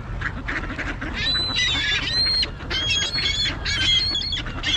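A flock of mallards and Canada geese calling together, with a string of short, high calls from about a second in and a steady low rumble underneath.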